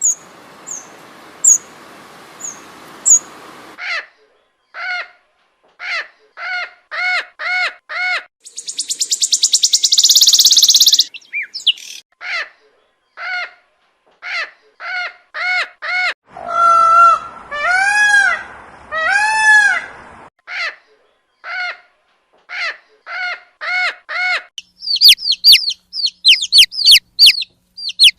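Several kinds of bird calling in turn, clip after clip: a few high chirps, then long series of short repeated calls, a harsh buzzing stretch partway through, a few long rising-and-falling calls, and a fast run of high chirps near the end.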